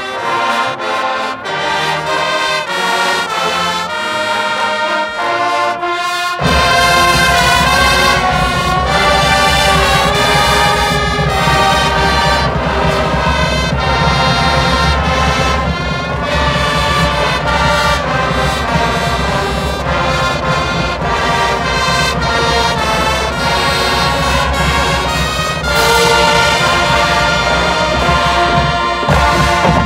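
High school marching band playing the school alma mater, brass to the fore. The full band comes in louder with a deep low end about six seconds in.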